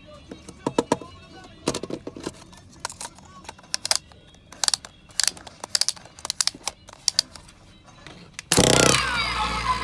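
Hard plastic parts of a toy spinning top being handled and snapped together: irregular sharp clicks and clacks, sometimes several in quick succession. Near the end, loud electronic music starts suddenly.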